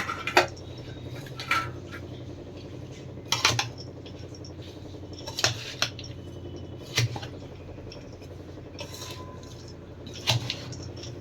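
A spoon clinking and scraping against a mixing vessel every second or two as dry fruits and coconut are stirred into the ladoo mixture, over a low steady hum.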